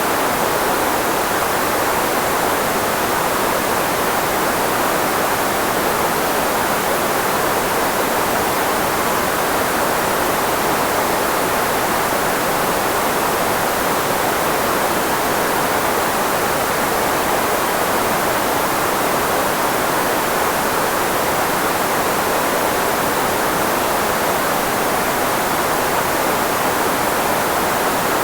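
Filtered white noise made to mask human speech: a steady, unbroken hiss, strongest in the middle of the range where voices sit.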